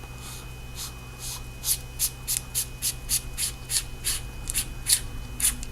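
Threaded body of an AstroLux S42 flashlight being unscrewed by hand: a run of short, dry scrapes from the threads, about three a second.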